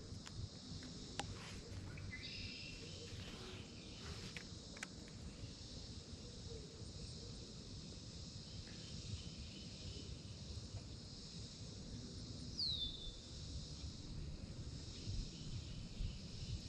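Steady high-pitched insect buzz with low wind rumble on the microphone; a bird calls briefly about two seconds in, and a single short falling whistle comes about twelve seconds in.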